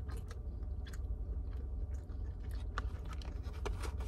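Close-up chewing of breaded fried chicken nuggets, with irregular crunches and mouth clicks over a steady low hum.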